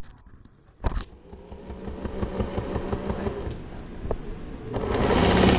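Model railway train running on the layout: a small electric motor whirring with a rapid clatter of wheels on the rails, growing louder near the end. There is a single click about a second in.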